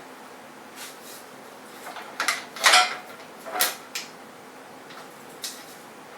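A clamp being handled and set on a board in a wooden jig: a series of separate clacks and short rattles, the loudest cluster about two and a half seconds in.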